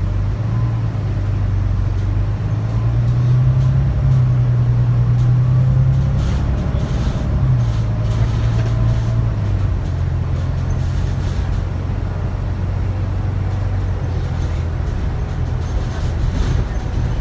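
Volvo B9TL bus's six-cylinder diesel engine, heard inside the passenger cabin, pulling under acceleration. Its note rises and holds, then drops twice, about 7.5 and 10 seconds in, as the ZF EcoLife six-speed automatic shifts up.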